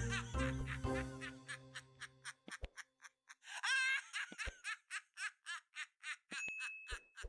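A held musical chord fading out over the first two seconds, under a recorded laugh track of quick, high giggling in short ha-ha pulses that runs on after it. Near the end, a click and a short ding.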